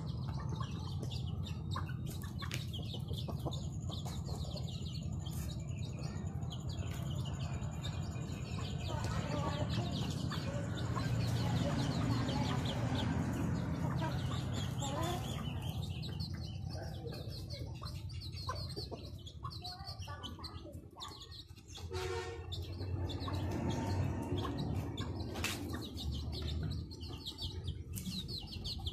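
Chickens clucking, with chicks peeping in many short high notes throughout.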